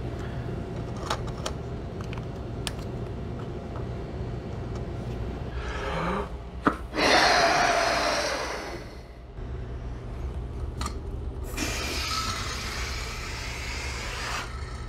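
A few light plastic clicks, then a person blowing hard into a balloon on a 3D-printed balloon racer car, about six to nine seconds in. About eleven seconds in, the air rushes out of the balloon's neck for about three seconds as it drives the car along.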